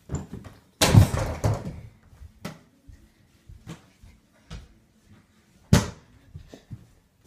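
Thuds and knocks of a mini basketball hitting an over-the-door hoop's backboard and the door it hangs on. There is a loud run of impacts about a second in, then single sharp knocks every half second or so, the loudest near the end.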